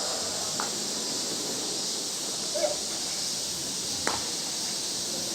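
Steady high outdoor hiss with a few faint knocks of softball bats hitting balls, the clearest about four seconds in.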